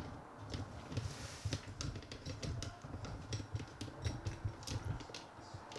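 Quick, irregular clicking and tapping of keys or buttons, like typing on a computer keyboard, over a low rumble.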